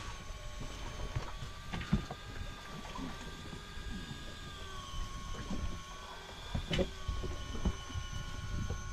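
A faint high motor whine with several steady tones that waver slightly in pitch together, over a low rumble of wind and water against the boat. A few sharp knocks, the strongest about two seconds and about seven seconds in.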